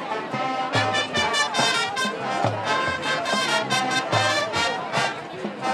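High school marching band playing an up-tempo Latin pop tune outdoors, trumpets and trombones carrying the melody over low notes pulsing on the beat.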